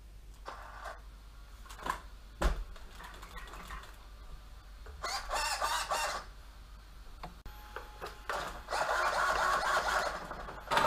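Handling noises of a Traxxas X-Maxx RC truck on a towel-covered table: clicks and knocks as the battery leads are connected and the truck is switched on, with a couple of short electronic tones. Near the end there is a louder stretch of scraping and rustling as the truck is turned onto its back.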